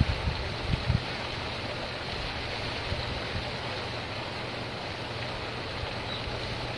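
Steady rush of running water, with a few low thumps in the first second.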